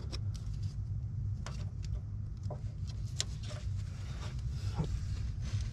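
Scattered light clicks and taps of small metal parts and tools being handled, about half a dozen at irregular times, over a steady low hum.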